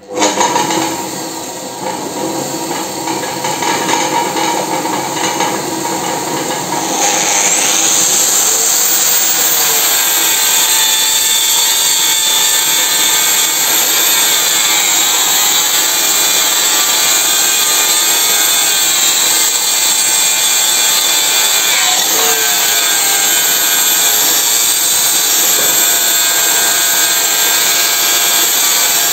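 A home-made electric-motor-driven spindle starts up, turning a steel pipe offcut held in a lathe chuck. About seven seconds in, an angle grinder with an abrasive disc spins up with a rising whine, then grinds steadily against the turning pipe, taking the rust off it.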